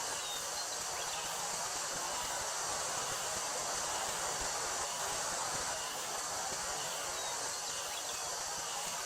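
Wind blowing steadily through a wheat field, with a continuous high drone of summer cicadas over it and a couple of brief high chirps.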